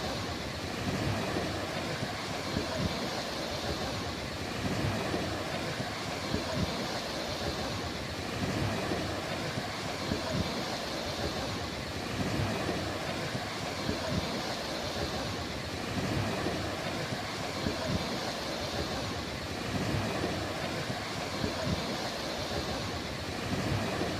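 Ocean surf washing steadily onto a beach, swelling gently every few seconds, with a low uneven rumble underneath.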